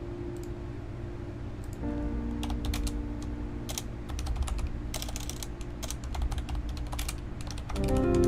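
Typing on a Corsair mechanical keyboard: keys clacking in quick, irregular runs that start about two seconds in. Background music with held notes plays underneath.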